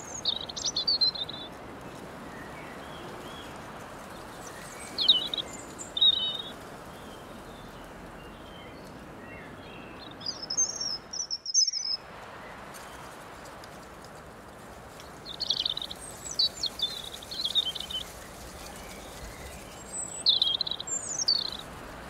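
Small birds singing short, high chirping phrases every few seconds over a steady meadow-breeze hiss. Near the middle the background hiss briefly drops out.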